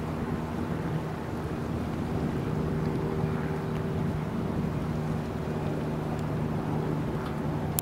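A boat engine running with a steady low drone.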